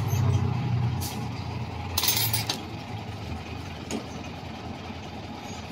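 A low engine-like hum that fades after the first couple of seconds, a sharp click about a second in, and a brief hiss about two seconds in, followed by a faint click.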